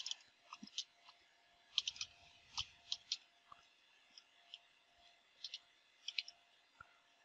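Faint computer keyboard keystrokes: scattered single clicks and quick pairs as a short command is typed, over a faint steady hum.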